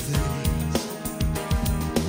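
Background pop song, an instrumental stretch with guitar and a steady drum beat.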